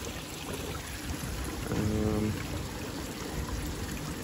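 Koi pond water running steadily, a rushing and trickling, under a low rumble. A brief low hum sounds about two seconds in.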